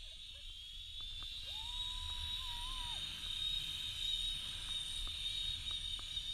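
Zipline trolley pulleys running along a steel cable: a steady high whine, with low wind rumble on the microphone. A single held high note sounds for about a second and a half, beginning about a second and a half in.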